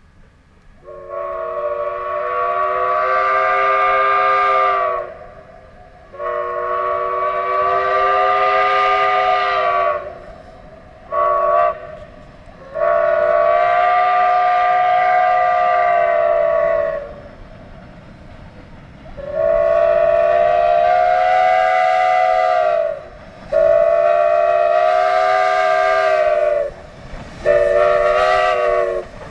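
Steam locomotive's chime whistle blowing several notes at once, in long blasts with short gaps: long, long, short, long, the grade-crossing signal, then the pattern starting again with two long blasts and short ones near the end. The pitch sags slightly as each blast ends.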